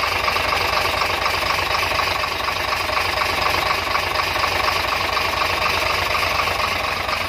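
Weichai WP10 inline-six diesel truck engine running steadily at idle, freshly started after a top overhaul with the cylinder head refitted.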